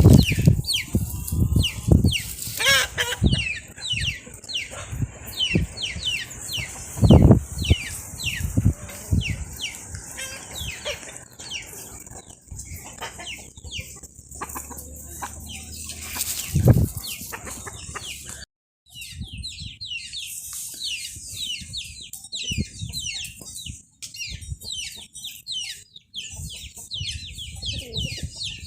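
Animal calls: many short, high, falling chirps repeated throughout, over a steady high hiss. Several loud low bumps come near the start, about seven seconds in and about seventeen seconds in.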